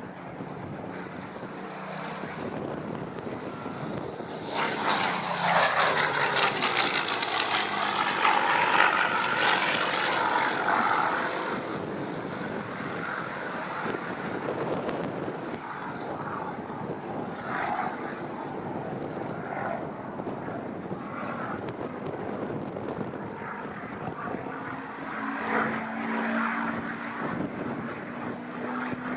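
Supermarine Spitfire's V12 piston engine on a low flypast: it swells to its loudest about five to eleven seconds in, its pitch falling as it goes by, then drops to a distant drone. Near the end a steady engine note builds again as it comes round for another pass.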